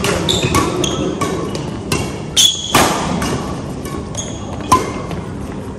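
Badminton doubles rally: rackets striking the shuttlecock in a quick run of sharp hits, with court shoes squeaking on the floor and crowd chatter behind, echoing in a large hall.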